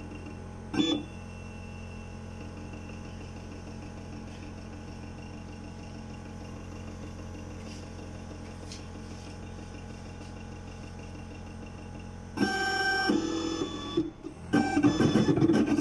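Sirona inLab MC XL dental milling unit running its calibration cycle: a steady motor hum with faint whining tones and a brief click about a second in. About three seconds before the end, a much louder run of pitched sounds starts and stops.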